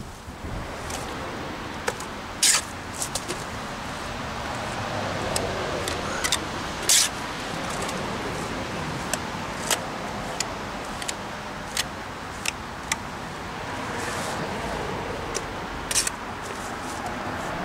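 Steel trowel working wet stucco on a block wall: scraping strokes and a scatter of sharp clicks as the trowel strikes the hawk. Under it is a steady background noise that swells and fades twice.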